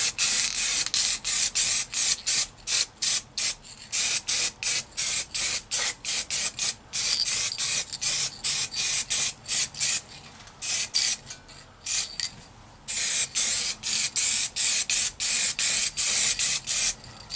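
Aerosol can of black spray paint hissing in short, repeated bursts, about two or three a second, with a pause of a couple of seconds about ten seconds in.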